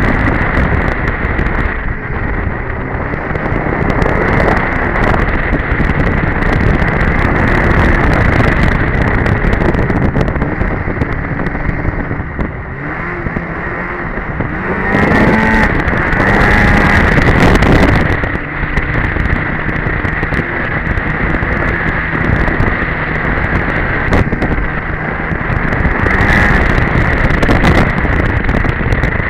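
Two-stroke engine of a 2002 Polaris Edge snowmobile running along a trail at speed, with wind noise. It gets louder for a few seconds about halfway through, its pitch rising as it accelerates.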